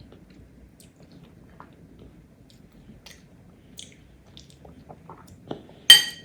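Eating sounds: soft chewing and small mouth and cutlery clicks, then near the end a brief, sharp ringing clink of tableware.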